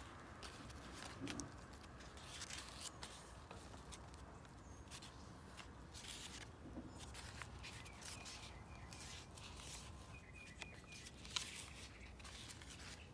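Faint rustling and crinkling of paper as handmade journal pages and tucked-in ephemera are handled and turned, with a sharper click about eleven seconds in.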